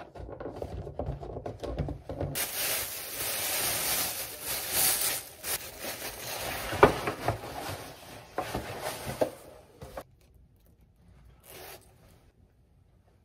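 Noisy rubbing and scraping of objects being handled, with scattered sharp clicks, the loudest about seven seconds in; it stops about ten seconds in.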